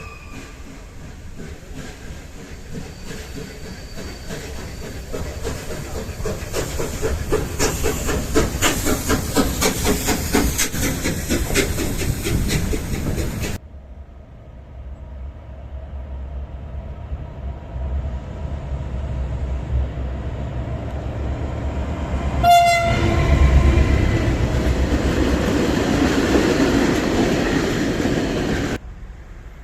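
A train passes with a fast, rhythmic clickety-clack of wheels over rail joints. After a cut, another train approaches, gives one short horn blast about two-thirds of the way through, and passes close and loud.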